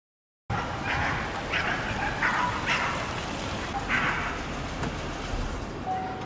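A dog barking several times over steady outdoor background noise. Near the end a steady beep starts.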